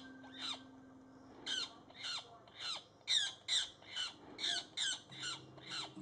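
Magpie pinned under a hawk giving rapid harsh distress squawks, each a short call falling in pitch, about two to three a second and coming faster after the first few seconds.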